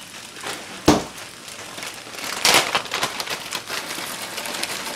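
Metal spatula stirring and scraping fried rice in a hot cast iron skillet, with a light crackle of sizzling and a sharp clack of metal on the pan about a second in.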